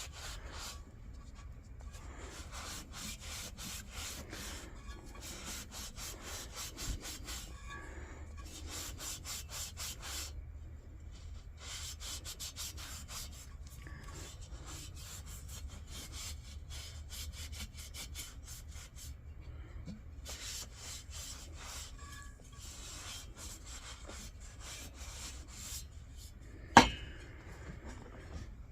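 Rapid back-and-forth scrubbing strokes on the heavily crusted collar of a Coleman L427 lantern, pausing now and then, with one sharp knock near the end.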